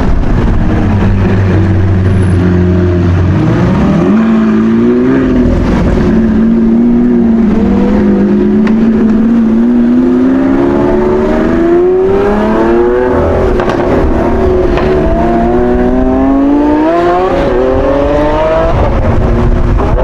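Sports car engine accelerating hard through the gears: its note climbs in pitch over several seconds, drops back at each upshift and climbs again.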